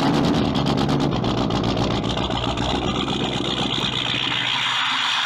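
Diesel pickup truck engine running just after starting, heard at the exhaust, with a fast even pulse of firing strokes. About two seconds in, a steady higher hiss comes in as the low engine tones weaken.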